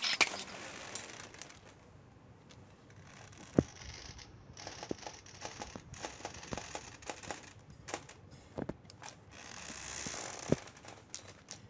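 Scattered light metal clicks and taps from hand tools and parts being handled on a motorcycle cylinder head, with a sharp knock right at the start and three louder knocks spread through.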